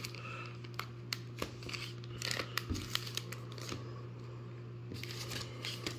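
Foil trading-card pack (2014 Bowman Draft) crinkling faintly as it is handled, with scattered small clicks, over a steady low hum.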